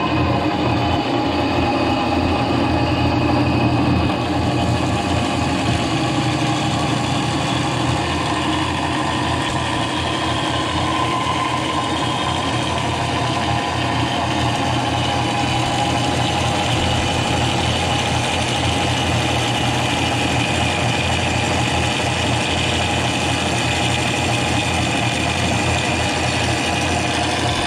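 Metal-cutting band saw running steadily, its blade cutting through a square steel tube clamped in the vise: a steady hum with held whining tones above it.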